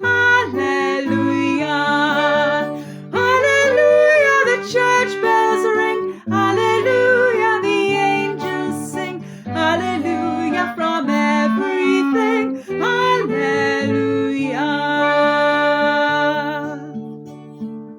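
The closing lines of a Christmas carol, sung over instrumental accompaniment and ending on a long held note about three-quarters of the way through, after which the music dies away.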